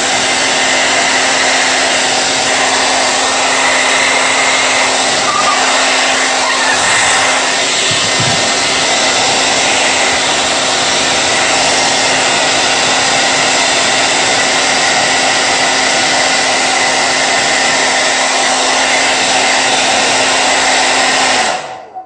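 Handheld hair dryer blowing: a loud, steady rush of air over a low motor hum. It switches off shortly before the end.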